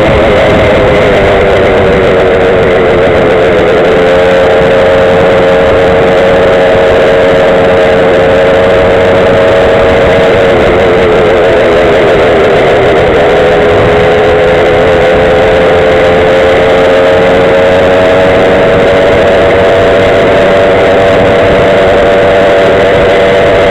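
Small two-stroke engine of a Go-Ped gas scooter running under way, loud over a steady rush of wind and road noise. Its note drops over the first few seconds, wavers in the middle, then climbs slowly as the scooter speeds up over the last several seconds.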